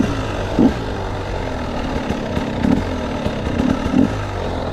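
Small off-road vehicle engine running steadily while riding a trail, with a few short low thumps.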